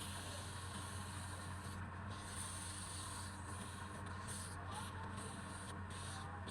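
Electric wood lathe humming steadily while something rubs and scrapes against the spinning wood, the high rubbing hiss breaking off briefly several times.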